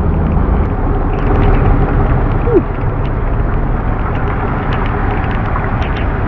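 Tow truck engine running steadily under the hiss of heavy rain, with a brief squeak about two and a half seconds in.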